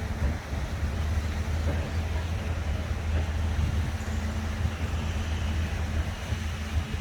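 Steady urban ambience: a constant low rumble of distant city traffic and construction works under the even hiss of water fountains splashing.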